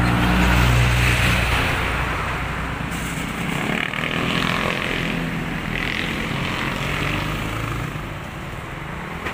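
Motor vehicles passing on the road: an engine hum, loudest in the first second or two, that fades away, followed by more passing traffic with a falling pitch about four seconds in.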